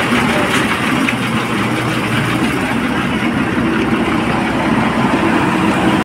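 Heavy diesel engines running steadily: a dumper truck idling close by and a JCB 4DX backhoe loader driving up with a loaded bucket.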